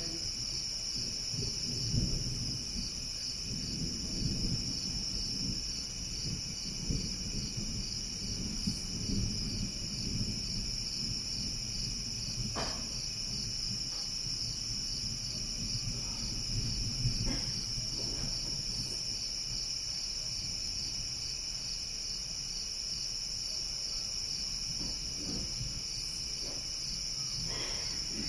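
A steady chorus of night insects, crickets or katydids, trilling without pause. Under it a low, uneven rumble of distant thunder rolls for roughly the first two-thirds, then eases off.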